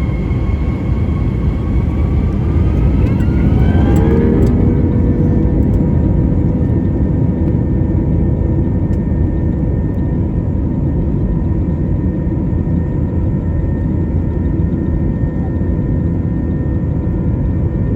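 Airliner jet engines heard from inside the cabin: a loud, steady rumble with an engine whine that rises in pitch over the first few seconds, then holds steady.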